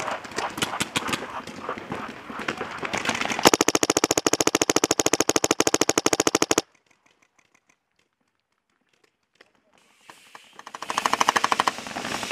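Paintball markers popping in scattered shots, then a Dye DM14 paintball marker firing a rapid, evenly spaced string of shots for about three seconds. The sound drops out for a few seconds, then another fast string of shots comes near the end.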